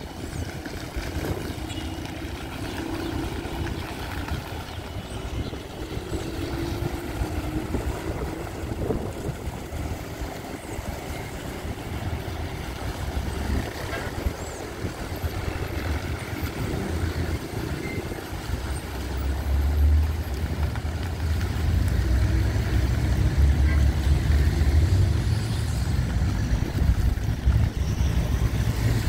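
Road traffic running steadily, with a deeper rumble that grows louder about two-thirds of the way through.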